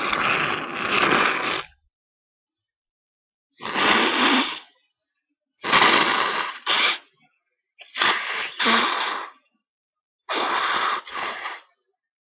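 A person blowing their nose hard in a series of forceful blasts. One long blow ends about a second and a half in, then four more follow about two seconds apart, most of them in two quick pushes.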